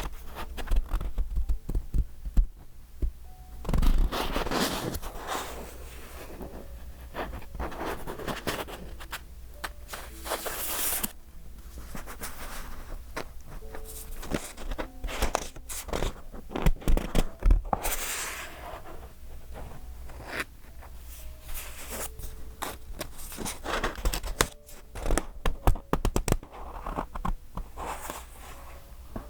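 Pages of a thick collage-decorated A5 paper journal being turned and handled: papery swishes as each page flips, with soft taps, scrapes and crinkles between them.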